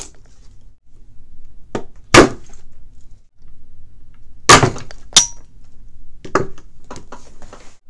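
Steel screwdrivers clanking against the reel's metal handle shaft and the tabletop while prying at a stuck bearing: several sharp metallic knocks, the loudest about two and four and a half seconds in, with lighter clicks near the end.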